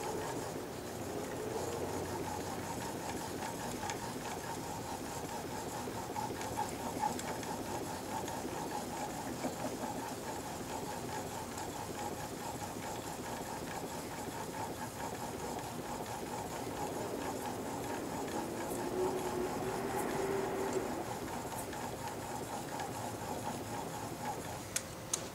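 Steel blade clamped in a honing jig being rubbed back and forth over an extra-fine DMT diamond sharpening stone: a steady, continuous scraping. This is the final extra-fine honing stage of the edge.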